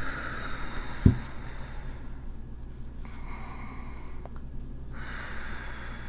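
A person taking slow, deep breaths, three long breath sounds in turn, with a short low thump about a second in.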